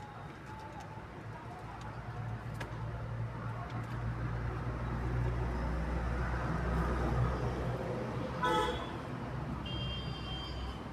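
A motor vehicle passing close by, its low engine rumble swelling and then easing off, with a short horn toot about eight and a half seconds in.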